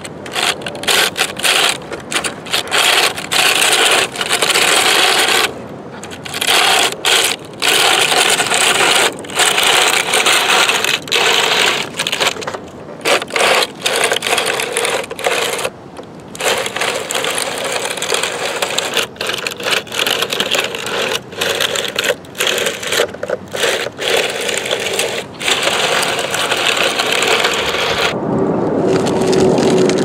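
The plastic tracks of a Bruder toy excavator rolling and clattering over a concrete sidewalk, moving in spurts with many short stops.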